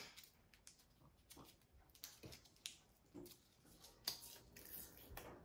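Faint crinkling and small clicks of a paper-wrapped roll of raspberry candy being picked open by hand, in short scattered bits over a near-silent room.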